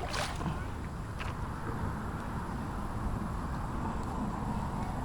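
Kayak paddle dipping and splashing in river water, with two sharper splashes near the start and about a second in, over a steady rumble of wind on the microphone.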